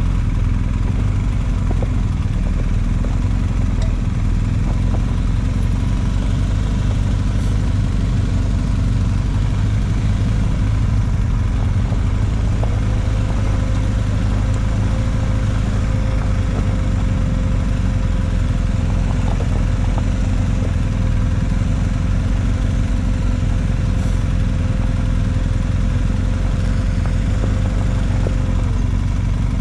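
Off-road vehicle engine running steadily with no clear revving. A thin steady whine joins in about twelve seconds in and stops near the end.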